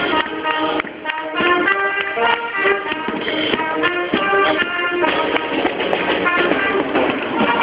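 Dance music with a steady beat and a melody of short, changing notes.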